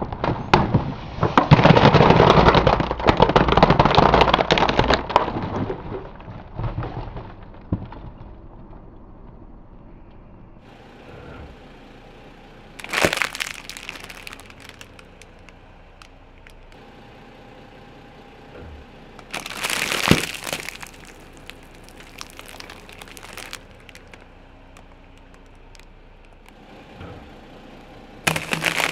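Brittle objects cracking and crunching as a car tyre rolls over them: a loud, dense crackling crunch for the first several seconds, then single sharp cracks about halfway through, again about two-thirds in, and at the end.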